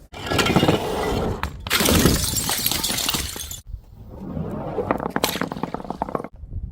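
Glass bottles shattering and crunching, with many sharp cracks and tinkles. It comes as three or four short clips back to back, each cut off abruptly.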